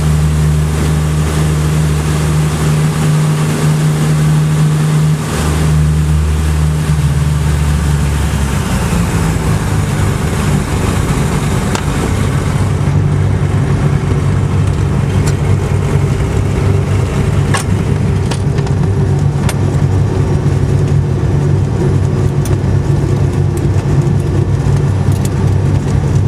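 Single-engine propeller plane's engine heard from inside the cockpit, running loudly and steadily on the runway. Its even hum turns rougher about a third of the way through.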